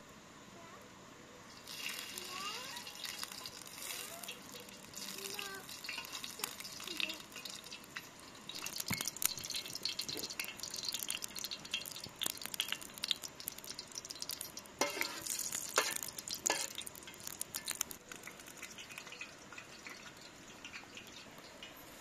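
Butter sizzling and crackling in a hot frying pan over wood-fire coals, starting about two seconds in as it goes into the pan, with dense popping and spattering in the middle, then settling.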